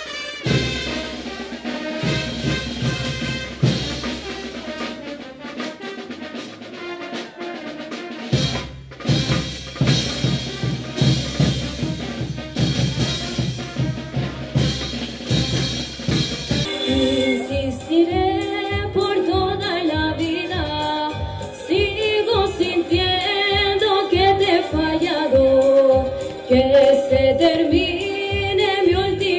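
Music for a tinku dance with a fast, heavy drumbeat. About halfway through it switches to a different song with a melodic lead line over a steady beat.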